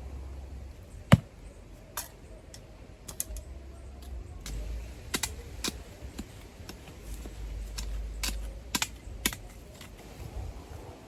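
Irregular sharp clicks and knocks, a dozen or more at uneven spacing, with one loud knock about a second in.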